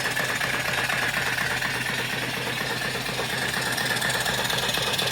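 Steam engine with a 3-inch bore and 4-inch stroke running steadily on boiler steam: a fast, even beat of exhaust and moving parts over a steady hiss.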